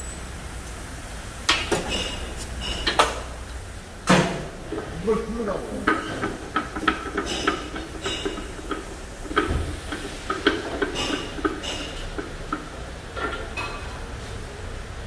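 Metal clanking and clinking from work on a car lift's column: irregular sharp knocks and short ringing taps, with a louder knock about four seconds in.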